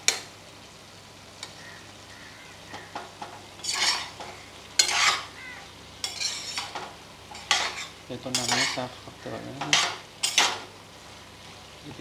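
Flat metal spatula scraping and stirring chickpeas and potato chunks in a stainless-steel pot, in a series of separate scraping strokes, over a low steady sizzle of the cooking food.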